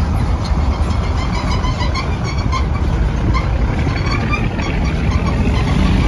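Engine of a converted school bus (chicken bus) running loud and low as the bus pulls away over cobblestones, getting slightly louder toward the end.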